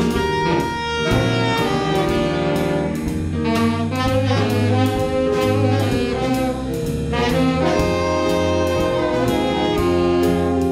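A saxophone section playing a jazz arrangement in harmony, backed by electric bass and a drum kit keeping a steady beat.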